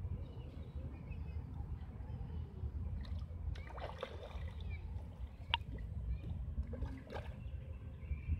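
Fish splashing at the water surface as they take floating bread, a splash about four seconds in and another near seven seconds, over a steady low rumble.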